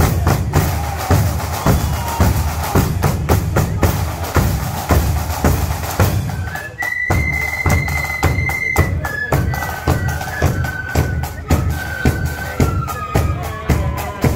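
Marching flute band: bass drums and side drums beat out a steady march rhythm, and about seven seconds in the flutes come in on a high held note and then carry a melody over the drums.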